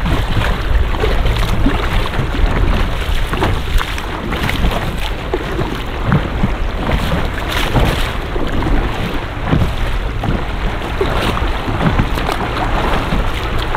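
Wind buffeting the microphone, with water sloshing and splashing around a kayak.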